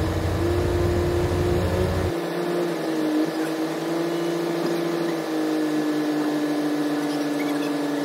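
Diesel tractor engines idling, a steady hum with a slightly wavering pitch. A deep low rumble underneath cuts off abruptly about two seconds in.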